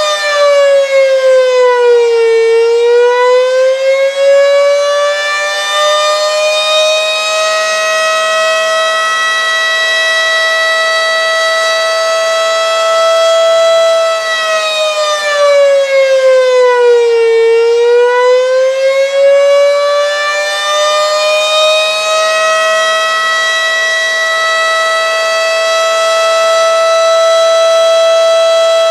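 Fedelcode Model 5 outdoor warning siren sounding the Attack signal. Its wail holds a steady pitch, sags to its lowest about two seconds in and again about seventeen seconds in, then climbs back and holds, and begins to fall again near the end. It sounds weak because the VFD driving the siren's motor is underpowered for the motor's rating, not because the motor is bad.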